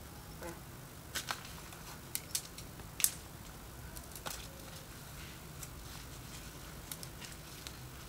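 Folding ruler being unfolded joint by joint: a series of sharp clicks, several in the first three seconds with the loudest about three seconds in, then a few fainter ones near the end.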